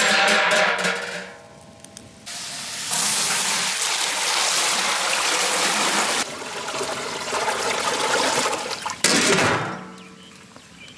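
A steady rush of liquid being poured or splashed into a large cooking vessel. It starts suddenly about two seconds in and stops about nine seconds in.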